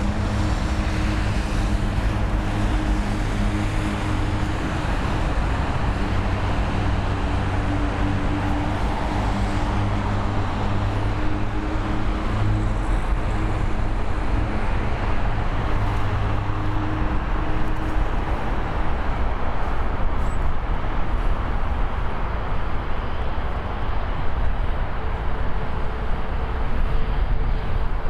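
Jet airliner engines running at the airport: a steady rushing roar with a low hum that fades out about two-thirds of the way through.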